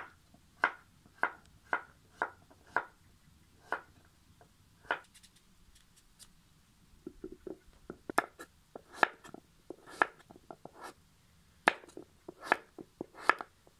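Kitchen knife cutting peeled raw pumpkin into cubes on a wooden cutting board, each cut ending in a crisp knock of the blade on the board. The knocks come about two a second at first, then after a short pause in a quicker, uneven run with lighter taps between them.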